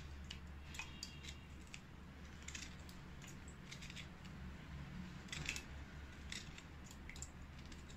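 Kitchen knife cutting small pieces from a lemon held in the hand, faint scattered clicks and snips of the blade through the peel, with pieces dropping into a stainless steel pot.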